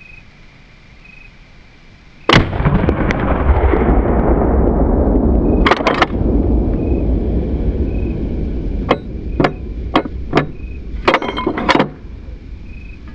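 Marlin 1895 lever-action rifle in .45-70 firing a single black-powder round about two seconds in, followed by several seconds of loud low noise. Two sharp metallic clacks a few seconds after the shot come as the lever is worked, and a string of lighter clicks follows near the end.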